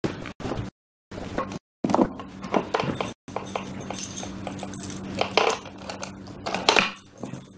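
Clicks, knocks and light clinks of a small box being pulled out from under a bed and handled, over a steady low hum. The sound cuts out completely a few times in the first three seconds.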